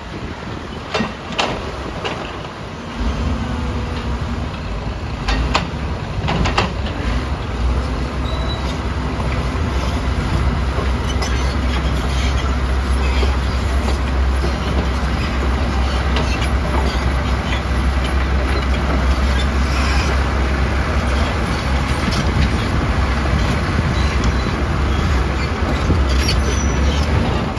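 Heavy earthmoving machines at work: crawler excavator and bulldozer diesel engines running, with steel tracks clattering and rocks knocking a few times in the first seconds. The low engine drone grows louder about three seconds in and then holds steady.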